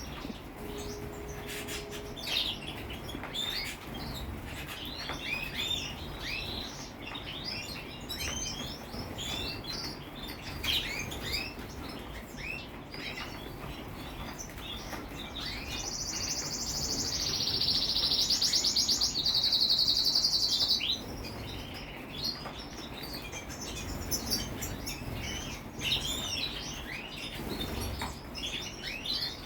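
Small songbirds chirping, many short calls overlapping throughout, with one long, loud rapid trill lasting about five seconds in the middle.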